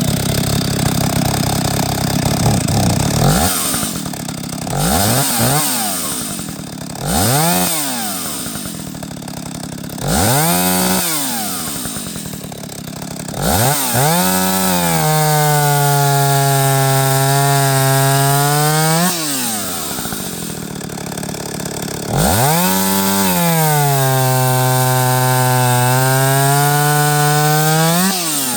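Stihl 031 AV two-stroke chainsaw engine idling and being blipped up in short revs about five times, then held at high revs for about five seconds twice, falling back to idle between and at the end. The saw has just been repaired and its carburettor tuned for about 20°F.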